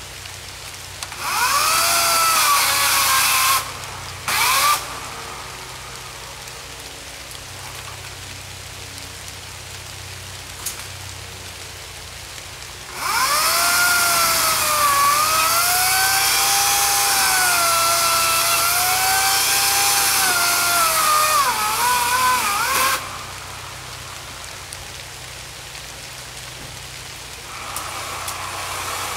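Greenworks 18-inch 14.5-amp corded electric chainsaw cutting downed trees. It runs in three spells: a short cut a second in, a brief blip, then a long cut of about ten seconds. Its whine dips and wavers in pitch as the chain bites into the wood.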